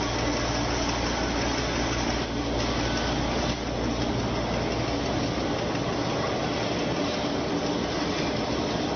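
Automatic reinforcing-cage welding machine for concrete pipe running, a steady mechanical din with a low hum underneath that drops away about halfway through.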